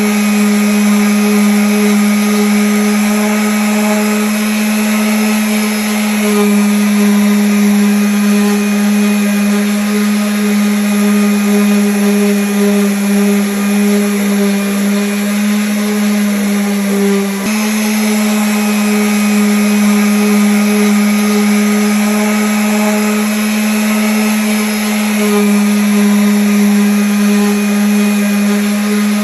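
Electric sander running steadily against wood, a constant hum with a brief dip and change in tone about two-thirds of the way through.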